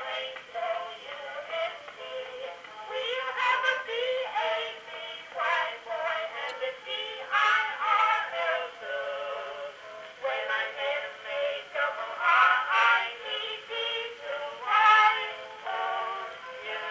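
An early acoustic Edison Records recording of a male and female vocal duet, playing through a wind-up phonograph's large wooden horn. The sound is thin and narrow, with no deep bass and no bright treble.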